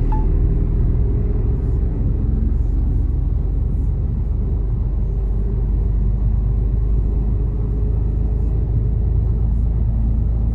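Mercedes Actros truck's diesel engine and road noise droning steadily inside the cab while driving.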